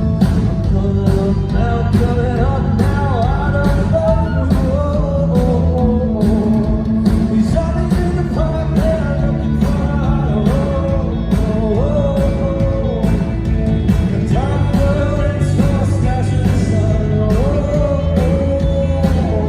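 Live rock band performance with a male lead singer over a steady drum beat, about two hits a second, and a heavy bass.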